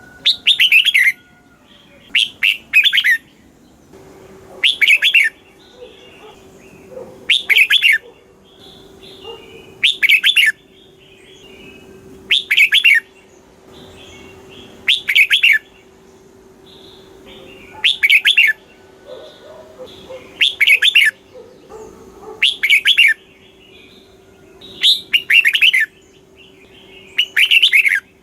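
Red-whiskered bulbul singing loud, short phrases of quick whistled notes, about one phrase every two and a half seconds. A faint steady hum runs beneath from about four seconds in.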